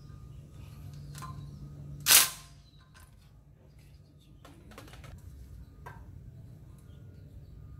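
A cordless driver with a hex bit fires one short, loud burst about two seconds in, running the 5 mm hex bolt of the ABS wheel-speed sensor on a steering knuckle. A few light metallic clicks of the bit and bolt come before and after it.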